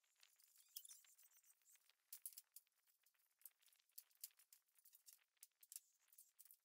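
Near silence: faint ambience with scattered light ticks and clicks.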